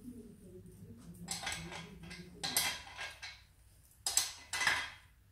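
Metal spanner clinking and scraping on a scooter's front axle nut as the wheel is bolted into the fork, in several short bursts, the loudest near the end.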